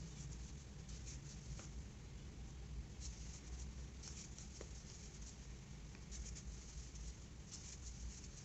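Faint, irregular scratching and rustling of a 4 mm crochet hook pulling plush yarn through stitches while single-crochet increases are worked, over a low steady hum.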